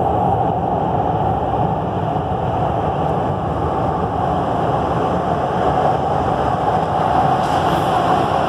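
Série 400 metro train running in through the tunnel into the station: a steady rumble of steel wheels on rail that grows brighter and nearer near the end as the leading car draws alongside.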